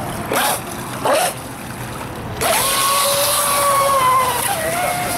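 Electric RC speedboat motor whining in short throttle bursts that rise and fall. About halfway in it settles into a loud, steady high whine at speed, which drops a little in pitch near the end.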